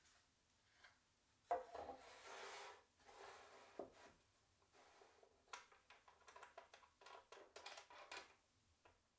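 Wooden 45-degree jig set down on the wooden saw sled with a sharp knock about a second and a half in, then scraped and shuffled into place, ending in a run of light taps and scrapes as it is pressed against the sled's rails.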